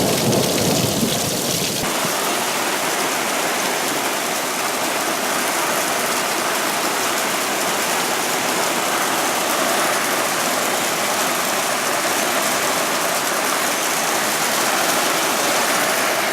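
Heavy rain pouring steadily in a thunderstorm. A low rumble of thunder in the first couple of seconds cuts off suddenly, leaving the even hiss of the downpour.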